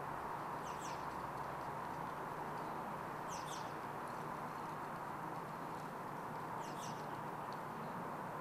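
Outdoor ambience: a small bird gives a short, high chirping call three times, about every three seconds, over a steady background hiss.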